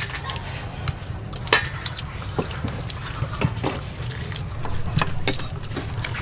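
Metal spoons and forks clinking and scraping as several people eat from a shared spread, with scattered sharp clinks about a second apart over a steady low background rumble.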